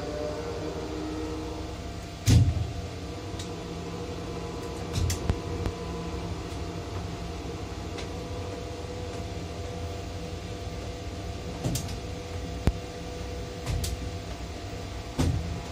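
Potain MC 310 tower crane heard from its cab: a steady drive-motor hum with held tones as the crane slews, over a steady rush of rain and wind. Several dull knocks cut through, the loudest about two seconds in.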